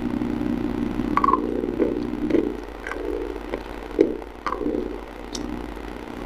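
Someone biting and crunching a stick of white chalk close to the microphone: about seven short, sharp crunches spread over the few seconds. A steady low hum sits underneath at first and fades out after about two and a half seconds.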